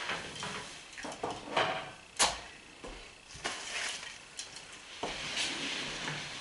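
Yellow-naped Amazon parrot splashing in a small water cup: irregular splashes and clatters of the cup, with a sharp knock about two seconds in.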